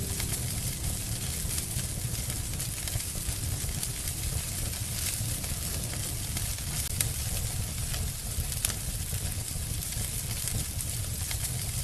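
Log fire crackling with a steady hiss and a few sharp pops.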